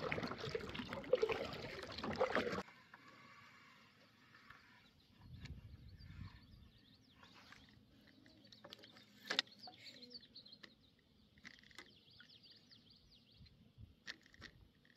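Kayak paddle strokes with water and wind noise for the first couple of seconds, cutting off suddenly. Then near quiet with faint bird chirps and a few small clicks of fishing-rod handling.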